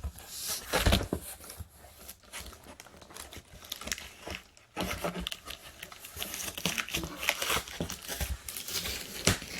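Shipping box being opened by hand: tearing and crinkling of the cardboard and packaging, with a knock about a second in and steady dense crinkling in the second half.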